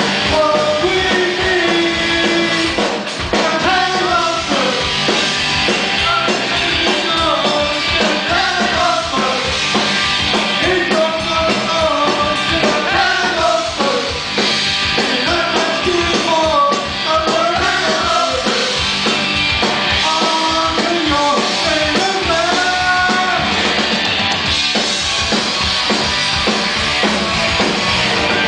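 Punk rock band playing live and loud: singing over distorted electric guitars, bass and drums, at a sound check.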